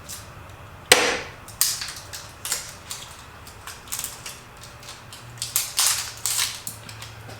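Hard parts of a portable kerosene heater being handled during assembly: a sharp knock about a second in, then a string of lighter knocks, clicks and rattles, bunching up again near the end.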